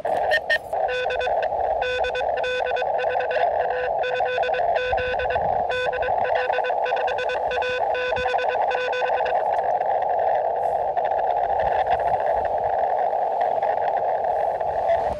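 Elecraft KX2 transceiver on 20 meters: Morse code (CW) tones keyed rapidly on and off over a steady band of narrow-filtered receiver hiss, with scattered sharp clicks. The keying stops about nine seconds in, leaving only the hiss.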